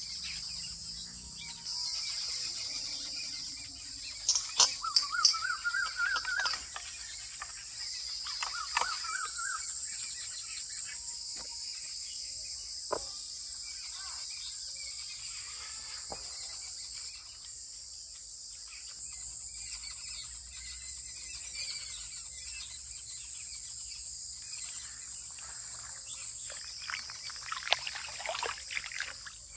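A steady, high-pitched chorus of insects, crickets among them, with a bird calling in two short rising, warbling phrases about five and nine seconds in. A few light clicks come through, and near the end there is wet splashing as raw meat is worked by hand in a bowl of water.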